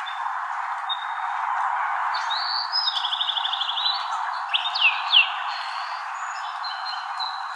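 Birds chirping over a steady rushing hiss: thin held whistles, a fast trill about three seconds in, and two quick falling calls around five seconds.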